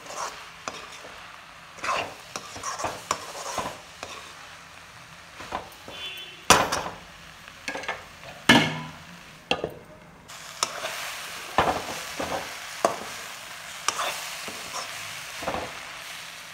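Steel spatula stirring and scraping prawns and potato pieces around a kadhai, in irregular strokes against the pan, the two loudest about six and a half and eight and a half seconds in. A steady frying sizzle runs underneath.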